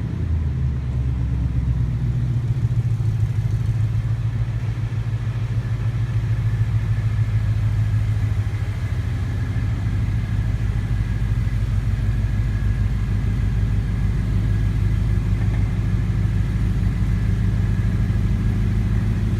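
Car engine running at a low, steady idle while the car is crept slowly into position.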